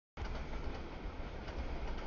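Cars of a CSX mixed freight train rolling past: a steady rumble of steel wheels on rail. The audio cuts out for a moment at the very start.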